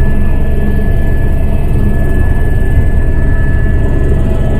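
Helicopter in flight heard from aboard: a steady, loud engine-and-rotor rumble with a thin, constant high whine over it.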